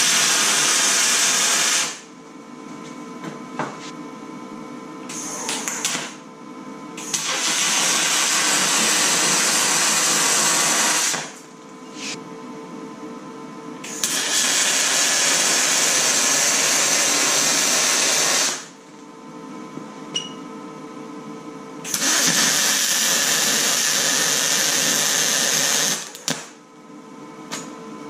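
Aluminum square tube being MIG welded with a spool gun: the arc hisses and crackles in four runs of two to four and a half seconds each, with a short burst about five seconds in. A steady hum fills the gaps between welds.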